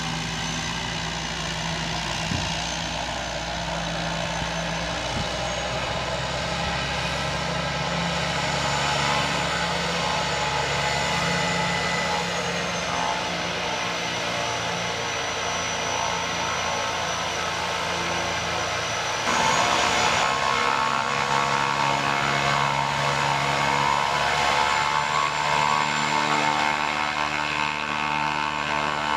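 De Havilland DHC-2 Mk III Turbo Beaver's PT6A turboprop engine running at taxi power, a steady turbine whine over the propeller's sound. About two-thirds of the way through it suddenly gets louder.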